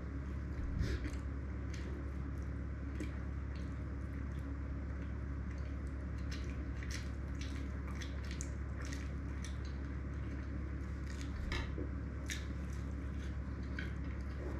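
Close-miked eating: a person chewing a bite of penirli pastry, with many small wet mouth clicks and a couple of light knocks, about a second in and near 11.5 s. A steady low hum runs underneath.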